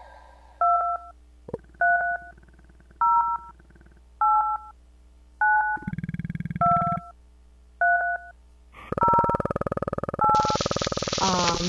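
Touch-tone telephone keypad dialing: a string of about nine short beeps, each two tones together, with a brief buzz about six seconds in. Near the end a loud hissing noise comes in over the last tones.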